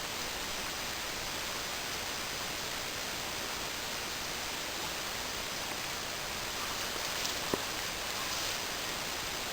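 Steady, even hiss of outdoor background noise, with one small click about seven and a half seconds in.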